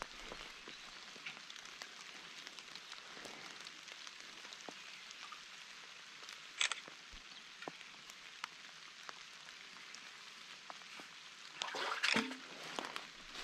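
Steady hiss of light rain falling, with scattered small ticks and one sharp click about halfway through. Near the end, a burst of rustling as an orange nylon rope is hauled up out of a concrete well and gathered by hand.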